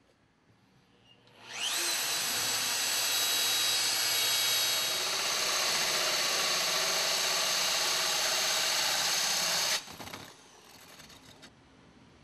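Power drill with a Hyperdia diamond-grit core bit spinning up with a rising whine about a second and a half in, then grinding steadily through textured wall siding. The drilling stops abruptly near the end, leaving a brief quieter rattle.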